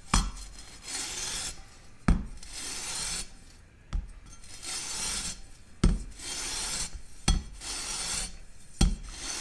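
Green abrasive scouring pad scrubbed over the tooth tips of a saw blade, a scratchy rubbing in strokes about a second long. A sharp knock comes between strokes, roughly every one and a half to two seconds.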